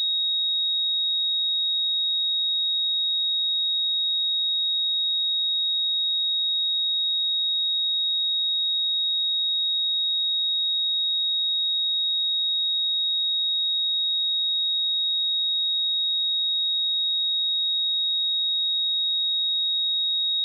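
A steady 3771 Hz sine-wave test tone: a single pure high-pitched note held at an even level throughout.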